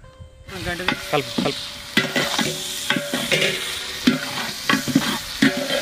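Sliced onions and green chillies sizzling in hot oil in a large aluminium pot, stirred with a long metal ladle that scrapes and squeaks against the pot's sides and bottom. The frying starts about half a second in and then runs on with repeated scraping strokes.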